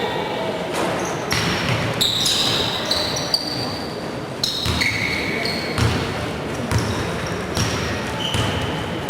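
Basketball game play on an indoor court: the ball bouncing, with short high squeaks of sneakers on the floor, over voices echoing in the hall.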